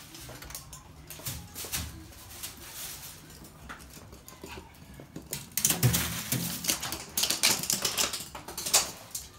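Toy poodles scampering on a hard floor, their claws clicking and skittering, mixed with rustling of a plastic sheet. The clicking grows busier and louder a little past halfway through.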